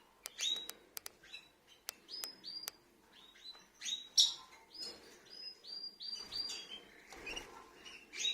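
Rosy-faced lovebirds (Agapornis roseicollis) chirping: a rapid series of short, high-pitched chirps and sharp clicks, with no break.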